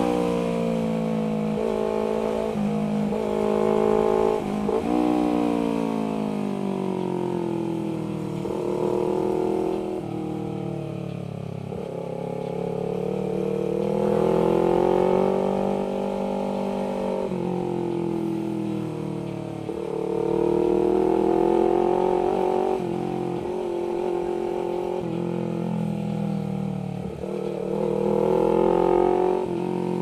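Honda CBR250RR's parallel-twin engine through an R9 GP stainless-steel aftermarket exhaust while riding: the engine note rises and falls again and again as the bike accelerates, shifts and rolls off the throttle.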